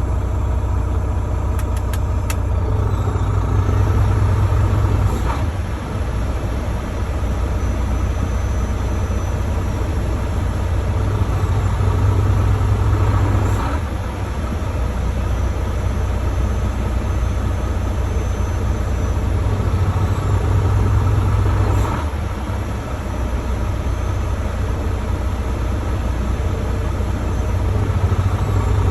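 Volvo D13 13-litre inline-six diesel truck engine idling roughly. The idle swells and sags in a slow, regular cycle about every eight seconds.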